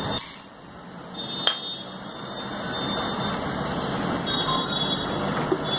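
Dry chana dal tipped from a small steel bowl into a plastic bowl, a sharp click about a second and a half in, then water poured from a plastic bottle onto the dal, splashing steadily.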